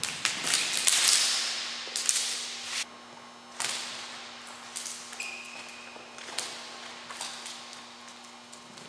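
Juggling rings clattering to the floor in a burst of sharp knocks and slaps over the first three seconds: a dropped ring pattern. Scattered lighter taps and clicks follow as the rings are picked up and caught, with a brief squeak about five seconds in.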